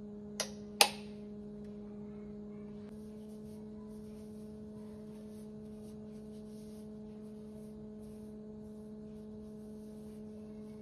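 Two sharp clicks about half a second apart, the second louder, from a plastic pump dispenser bottle being pressed, over a steady hum. Faint soft rustles follow as hands rub product into the face.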